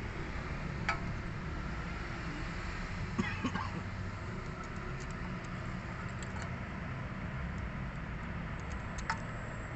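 A few small metal clicks as a brake-hose banjo bolt and its copper washer are fitted together by hand, over a steady low background rumble.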